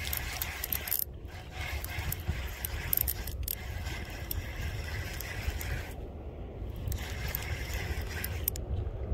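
Fishing reel being cranked to bring in a hooked fish, its gears clicking in spells with a few short pauses. A low rumble of wind on the microphone runs underneath.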